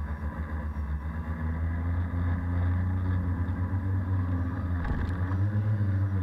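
Electric tricopter's brushless motors and propellers buzzing at takeoff throttle, heard from a camera on the frame. About five seconds in the pitch dips briefly, then climbs as the craft lifts off.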